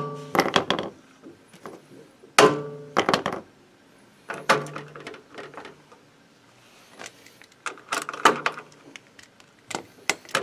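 Hammer blows on the centre of a Motobécane moped's drive plate, knocking it to free the plate and its key from the shaft; each hard strike rings briefly, with a strong one about two and a half seconds in and another a couple of seconds later. Lighter clicks and clinks of metal being handled follow near the end.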